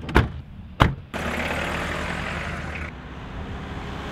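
Car: two sharp knocks in the first second, then a steady rushing noise over a low hum from about a second in.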